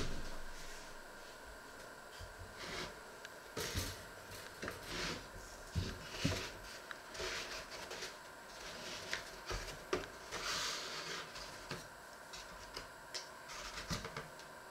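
Kitchen handling noises: a sharp click at the start, then scattered knocks and rustles as a steel mixing bowl is moved on a wooden board and a cardboard egg carton is opened and eggs are lifted out. A faint steady hum sits underneath.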